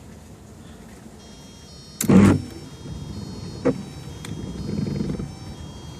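Windshield wiper motor of a 1998 Volkswagen Jetta TDI being switched on through a newly fitted wiper switch: a loud clunk about two seconds in, a click, then the motor whirring for a moment.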